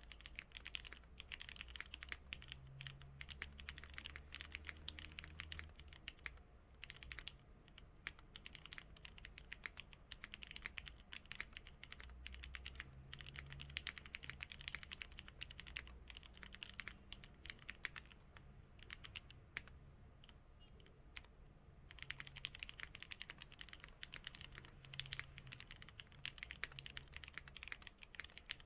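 Typing on an Abkoncore AR87 mechanical keyboard with lubed Cherry MX Red linear switches, Cherry stabilisers and doubleshot PBT keycaps on a full aluminium case: a fast, steady run of keystrokes that thins to a few scattered presses twice, about a quarter of the way in and again about two thirds of the way in.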